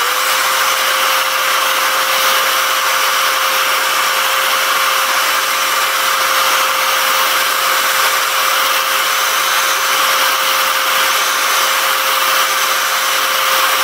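Handheld hair dryer switching on and running steadily: a constant rush of air with an even mid-pitched motor hum beneath it, heating plastic action-figure joints to soften them.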